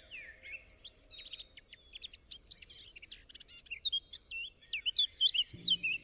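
Birds singing in a busy run of quick, high chirps and whistles, growing louder toward the end. A music track's notes come in near the end.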